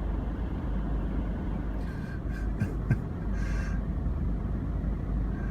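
Steady low rumble of a car running in slow traffic, heard from inside the car, with a few short, higher sounds between about two and four seconds in.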